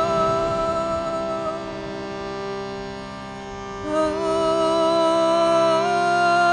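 Shruti box drone, its reeds held in a steady chord, with a woman singing long notes over it. Her voice fades out in the first couple of seconds, then comes back strongly about four seconds in with a slight waver and steps up a note near the end.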